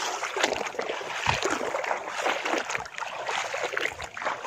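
Water sloshing and splashing in irregular strokes as someone wades through shallow, muddy floodwater among reeds.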